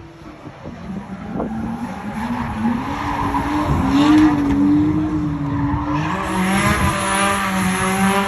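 Car engine revving hard at high revs, its pitch rising and wavering and growing louder, with tyres squealing from about six seconds in.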